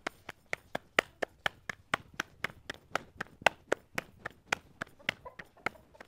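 Tandoori roti dough slapped back and forth between bare palms to flatten it, a steady patting of about four slaps a second.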